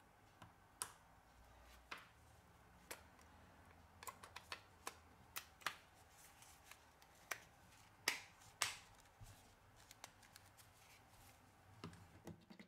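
Irregular small, sharp clicks and taps of a smartphone's parts being pressed and snapped into place by hand and with a plastic pry tool. The two loudest come about eight seconds in.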